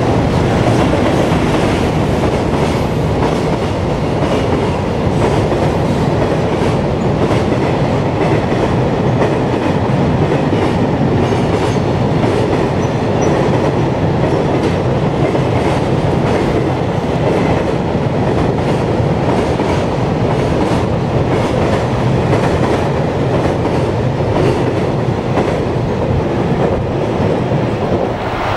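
A long freight train running past at speed on the track: a steady rumble of wheels on rail with a fast clickety-clack as the wheels cross the rail joints.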